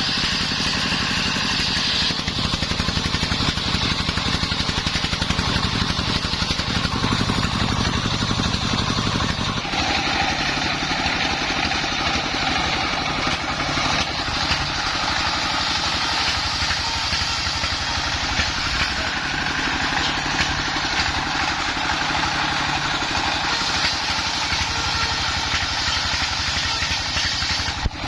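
Engine-driven circular saw rig running steadily while ripping wood into battens, the engine pulsing in a fast even rhythm under the higher sound of the blade, which changes about two seconds and again about ten seconds in.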